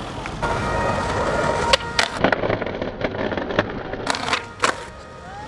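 Skateboard wheels rolling on hard ground, with a run of about six sharp clacks of the board hitting the ground in the second half.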